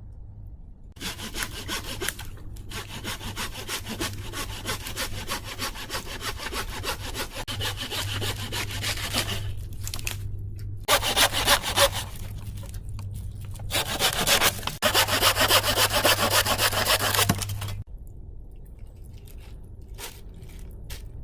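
Wood being sawn by hand: a saw rasps back and forth in quick, even strokes, pausing briefly a few times, then stops a few seconds before the end.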